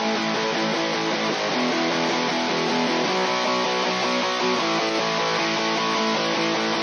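Multitracked electric rhythm guitars playing continuously, run through a 500-series VCA stereo bus compressor.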